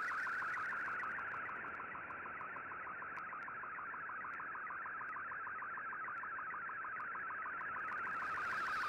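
MFSK digital picture transmission received on shortwave and played through the receiver in AM mode: a steady, warbling data tone with a fast, regular pulsing pattern, over shortwave hiss.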